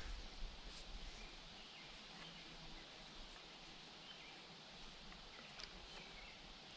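Faint outdoor background hiss with a few light clicks, about half a second in, near one second and again later; no steady saw strokes.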